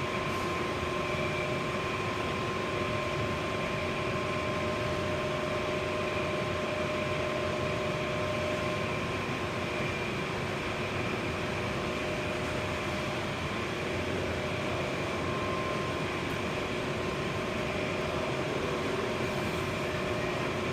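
Daikin gas furnace running with a steady fan noise and a constant whine of several held tones.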